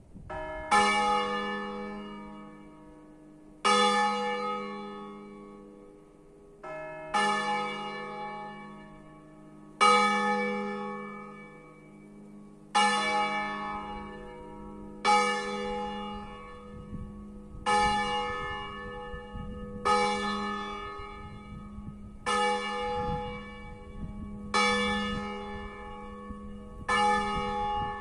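Swinging bronze church bells of a five-bell peal tuned in E-flat, cast by Pruneri (1892 and 1900) and Ottolina (1951), rung by hand. Each bell strikes once every two to three swings' worth of time, about every two to three seconds, and rings on between strikes. The strokes come a little closer together in the later part.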